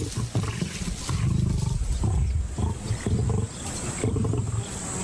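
Lions growling at a carcass, several deep growls one after another: a feeding squabble as a young male lion forces his way in among the lionesses.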